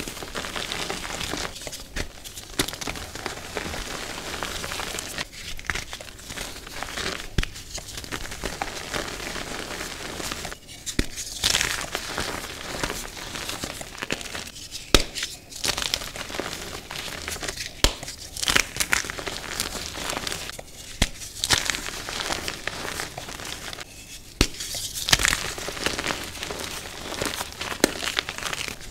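Reformed gym chalk being crushed and crumbled in gloved hands: dry crunching and crackling as the blocks break, with grit and powder sifting down, coming in louder squeezes every few seconds.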